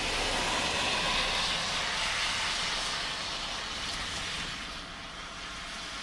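Steady rain hiss that swells louder over the first couple of seconds and then eases off.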